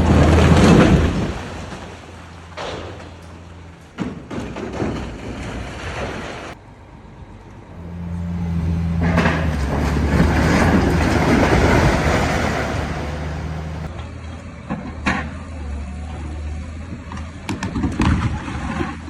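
A heavy excavator's diesel engine running steadily, with two long crashing rumbles of collapsing masonry, at the start and again about nine seconds in, and sharp knocks of impacts scattered through.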